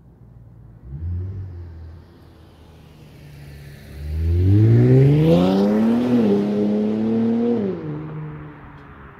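Infiniti Q60's twin-turbo 3.0 V6 (VR30DDTT) through an MBRP cat-back exhaust. It gives a short rev about a second in, then makes a hard full-throttle pull from about four seconds in, rising steeply in pitch. The pitch steps down once at a gear change and climbs again, then falls away as the driver lifts off and the car fades into the distance.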